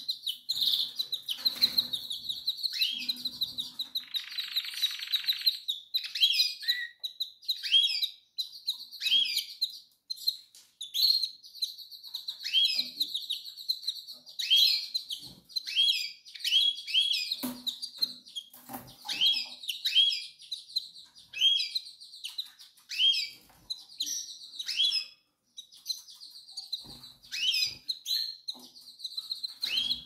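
Canaries calling: a steady stream of short chirps that drop sharply in pitch, one or two a second, over a continuous high trill. The uploader presents it as a female canary in heat calling the male to mate.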